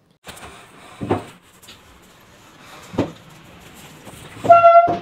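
Knocks and bumps of things being handled in a small room: two sharp knocks about two seconds apart over a low rustling background. Near the end comes a short, loud, steady high tone, the loudest sound here.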